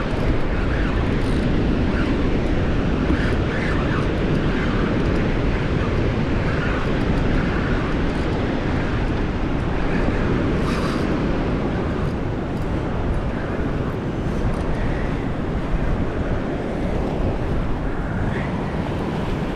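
Steady rushing of river water with wind buffeting the microphone.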